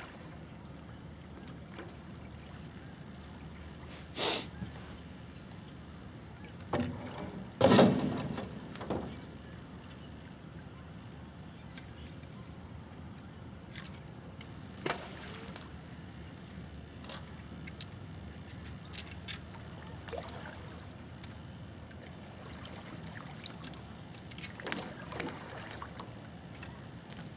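Duck decoys being set out from an aluminium jon boat while it is paddled: scattered knocks and splashes against a steady low background, the loudest about eight seconds in, with smaller ones before and after.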